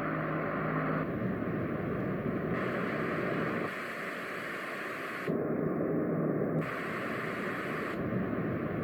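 Roffie white noise machine playing steady noise sounds through its small speaker, switching abruptly to a different sound about every second or so, alternating between brighter hiss and deeper rumbling noise, some with a low hum.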